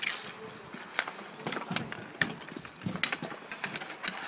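Inline hockey play: irregular sharp clacks and knocks of sticks and the puck against sticks and the boards, with inline skate wheels rolling and scraping on asphalt, a hissing scrape at the very start.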